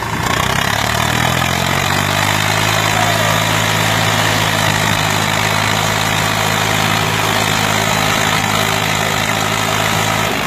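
Eicher tractor's diesel engine running steadily, picking up revs over the first second or so and then holding an even note.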